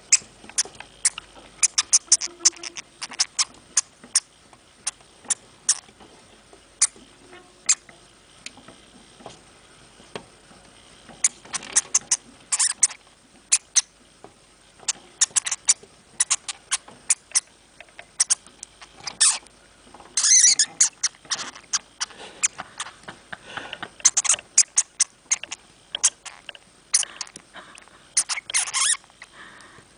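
Hamster making quick, sharp clicks and rustles that come in irregular clusters, some bunched into rapid runs.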